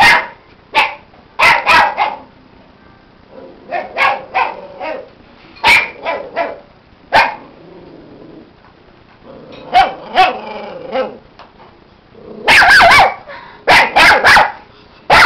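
Small puppy yapping in short, sharp barks, in irregular bursts with pauses between, and a rapid run of barks near the end, while it mouths at a hand in play.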